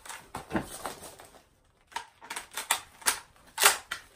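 Clicks and clacks of a Howa Type 89 rifle replica being handled in a fast reload drill: a quick cluster of knocks at first, then, after a short pause, a series of sharp separate clacks, the loudest near the end as the reload finishes.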